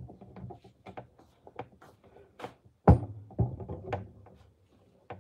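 Handling noises: scattered light knocks and rustles, with one sharp knock about three seconds in and a few softer ones after it.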